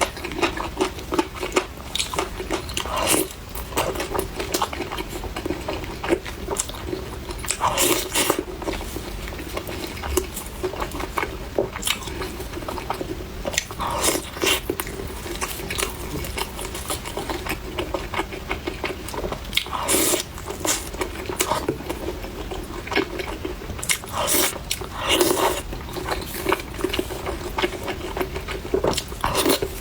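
Close-miked biting and chewing of crispy fried chicken, with irregular crunches and louder bites every few seconds, over a steady low hum.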